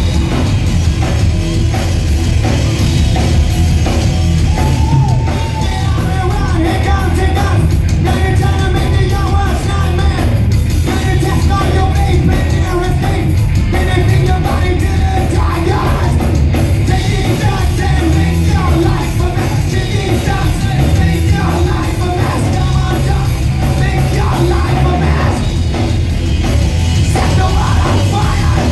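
Live hard rock band playing: distorted electric guitar, bass and drums with a singer's shouted vocals, loud and continuous.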